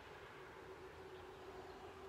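Near silence: faint outdoor background with a steady faint hum.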